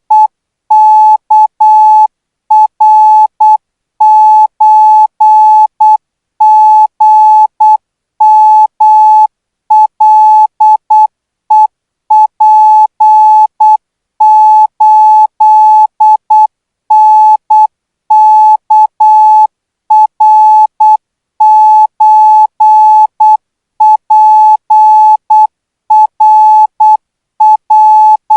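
Thai Morse code practice signal at 12 words per minute: a single steady-pitched beep keyed on and off in short dots and longer dashes, grouped into characters with short gaps between them.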